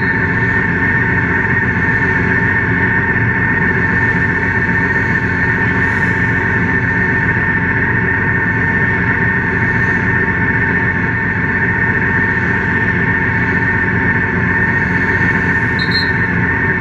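BMW K1600GT police motorcycle's inline-six engine idling steadily while stopped, with a constant high whine over the engine noise, heard through a camera mounted on the bike. Traffic passes alongside.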